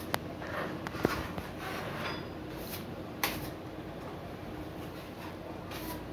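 Putty knife scraping and spreading filler across a plastered wall. Scrapes come in short strokes, with a few sharp clicks of the blade.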